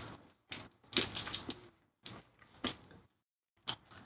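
Chocolate bars and their wrappers being handled: about five short, sharp crackles with gaps between them, the longest about a second in.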